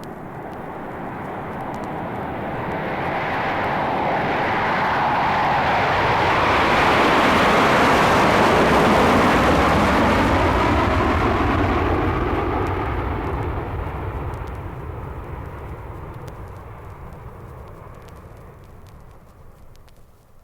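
A jet aircraft passing by. Its rushing engine noise grows louder to a peak about eight seconds in, then fades away.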